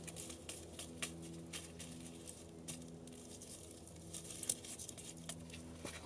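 Faint, irregular crackling and popping from a campfire's coals as they are poked and spread out with a stick beneath a griddle of frying bacon.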